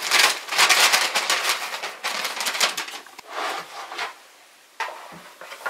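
Plastic zip-top bag and paper bag crinkling and rustling as they are handled: a long run of quick crackles, then a short burst near the end.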